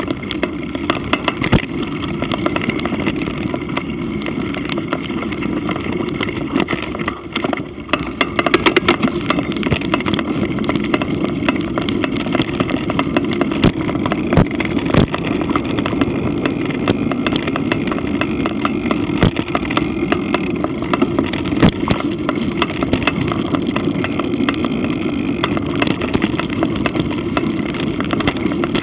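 Mountain bike ridden fast down a dirt singletrack trail, heard through an action camera's microphone: a steady rush of tyres and wind with frequent clicks and knocks as the bike jolts over roots and bumps, getting louder about eight seconds in.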